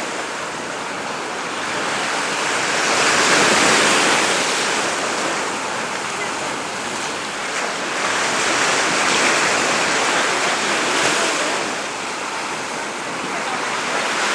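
Sea surf washing onto a beach, the wash of breaking waves swelling and easing every few seconds.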